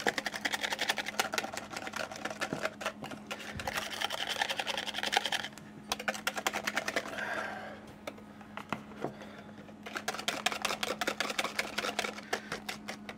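Wire whisk beating batter by hand in a plastic mixing bowl, the wires clicking rapidly against the bowl. The strokes stop briefly around the middle, then start again.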